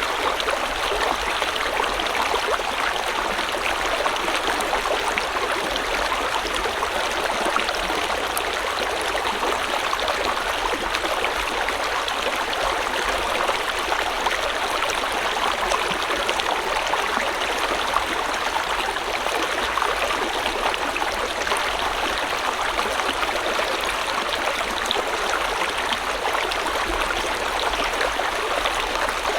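A small river or stream flowing steadily over rocks, a continuous rushing and gurgling of water with no change in level.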